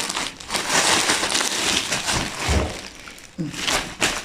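Packaging crinkling and rustling as a garment is handled and unwrapped, in irregular noisy scrapes.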